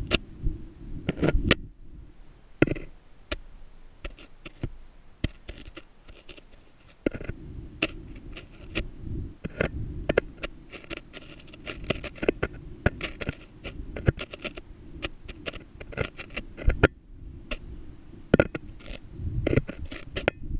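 GoPro rig in a homemade setup scraping and knocking against the rough wall of a deep borehole as it is lowered: a run of sharp clicks and knocks over a low rumble, sparser at first and coming thick and fast from about a third of the way in.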